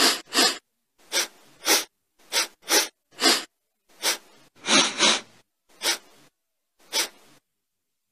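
A person sniffing sharply through the nose, about a dozen quick sniffs, many in pairs, with short silent gaps between them.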